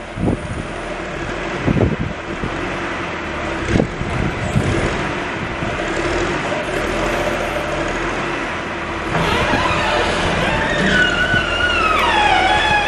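John Deere 710D backhoe's diesel engine running steadily, with a few knocks in the first few seconds. In the last few seconds a squeal slides down in pitch.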